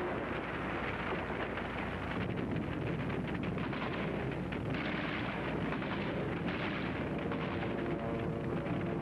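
Battle sounds on a 1942 film soundtrack: a continuous rumble of explosions with crackling, rapid gunfire, loudest and densest in the middle.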